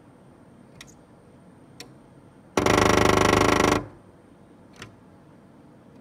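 Black-rumped flameback woodpecker drumming on a wooden window frame at close range: one loud, very rapid drum roll lasting a little over a second, with three single taps spaced around it.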